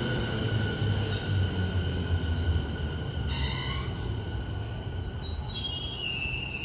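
E217-series electric commuter train running into the platform and braking: a low rumble with steady high whining tones, a brief squeal about three seconds in, and several high-pitched brake and wheel squeals starting near the end as it slows.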